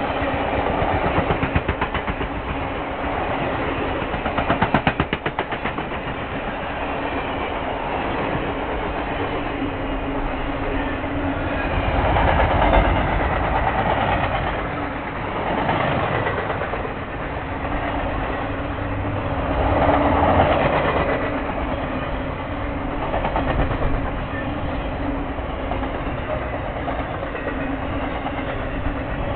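Ringling Bros. and Barnum & Bailey circus train's cars rolling past close by: a steady rumble of steel wheels on rail. There are bursts of rapid wheel clicking about a second in and again around five seconds, and the sound swells louder several times as cars go by.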